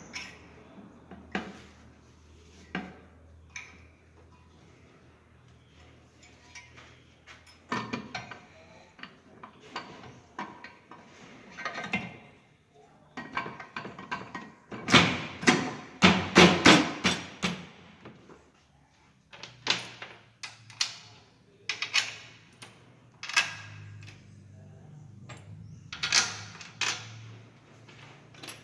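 Ford Fiesta manual gearbox being put back together as the second case half goes on: a string of metal clunks, knocks and taps, with a dense run of loud knocks about halfway through and quieter stretches between.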